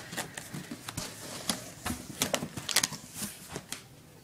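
Hands rummaging in a cardboard shipping box, rustling and crinkling the paper sheets and foil food pouches inside, with scattered light clicks and taps.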